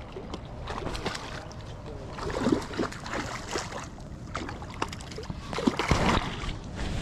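Water splashing and sloshing at the lake edge in irregular bursts, the loudest about two and a half seconds in and again near six seconds, over a steady low rumble of wind on the microphone.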